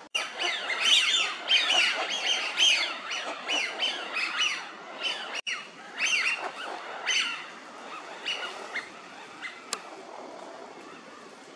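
A flock of Eurasian wigeon calling: many overlapping whistled calls that fall in pitch. They come thick for the first five seconds or so, then thin out to scattered single calls.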